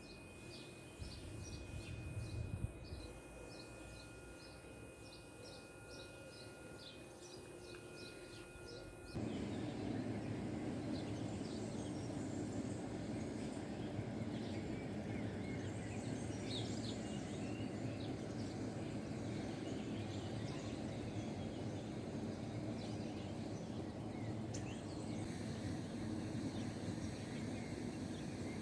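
Small birds chirping in a quick repeated series, about two calls a second, over a thin steady whine. About nine seconds in the sound jumps abruptly to a louder, steady rush of flowing water, with birds still calling over it.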